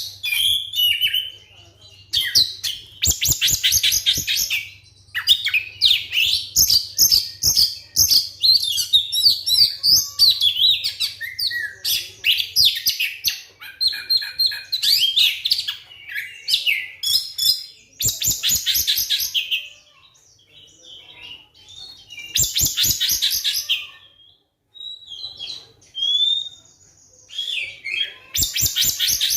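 Oriental magpie-robin (kacer) singing loudly in long, varied phrases of whistles and chatter, broken by several fast rattling runs of rapidly repeated notes and short pauses.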